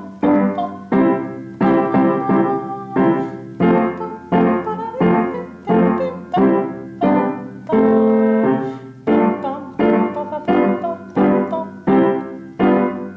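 Yamaha piano playing a slow tango accompaniment: a steady beat of struck chords, each dying away before the next, with one chord held longer about eight seconds in.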